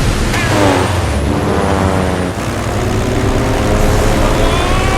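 Piston aircraft engine running hard, its pitch gliding up and down.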